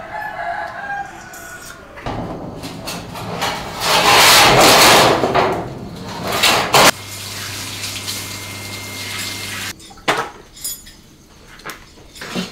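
A sheet-metal lid dragged across the rim of a concrete roasting oven: a long, loud rushing scrape that swells and fades, ending in sharp metallic clanks. A steady low hum follows, then a few light clicks.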